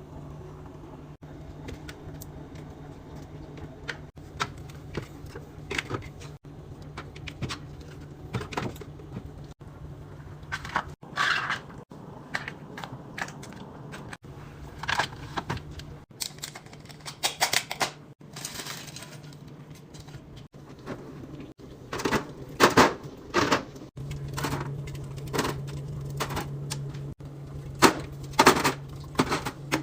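Fridge restocking: bottles, cans and food containers knocking, clicking and clinking as they are set down and slid into place, in irregular bursts. A low hum runs underneath in parts.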